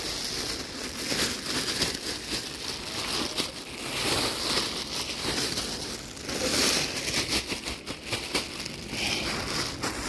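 Rustling and crinkling with many small cracks, rising into brief louder bursts of hiss several times.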